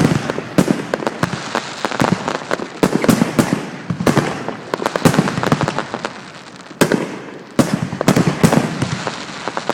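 Fireworks going off: many sharp bangs and crackling reports in quick succession, easing briefly about two-thirds of the way through before a fresh cluster of bangs.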